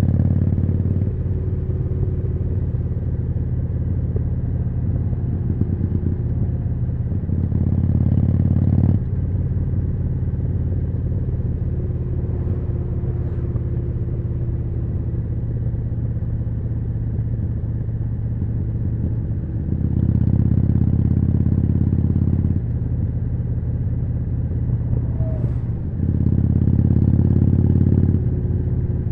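Harley-Davidson Forty-Eight's V-twin through a Jekill & Hyde aftermarket exhaust, running on the road. It gets louder in four short stretches of harder throttle, then settles back to a steadier cruise.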